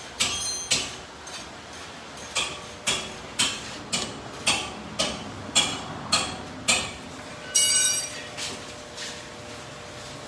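Hammer blows on metal, about two a second, each with a short metallic ring; one stronger blow near the end rings longer, then a few lighter taps.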